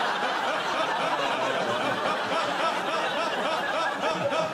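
Studio audience laughing, a dense, steady wave of many voices laughing together.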